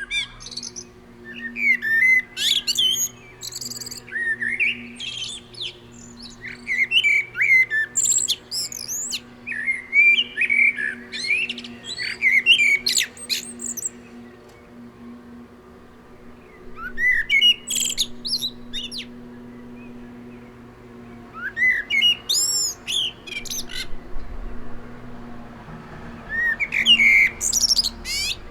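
Common blackbird (Turdus merula) singing: mellow fluted warbling phrases, each ending in a high, thin twittering flourish. The phrases come almost back to back for the first dozen seconds or so, then singly with pauses of a few seconds between them. A faint steady low hum lies underneath.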